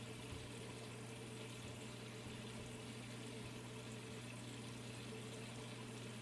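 Quiet room tone: a steady low hum with an even faint hiss and no distinct events.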